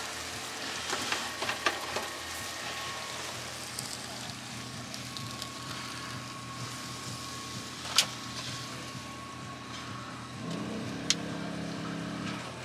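Steady frying hiss from a hot pan of stir-fried noodles and the gas stove, with a few sharp clinks of utensils against the pan, the loudest about eight seconds in. A brief low hum near the end.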